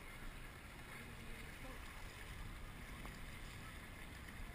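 Steady wash of river water along the hull of a slowly moving dragon boat, with some wind on the microphone.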